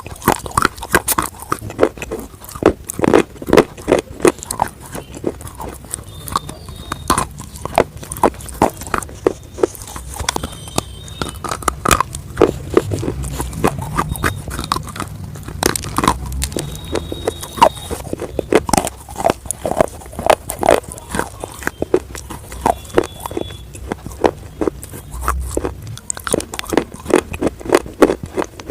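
Close-up crunching and chewing of fried chicken nuggets: crisp bites and chews, several a second, without pause.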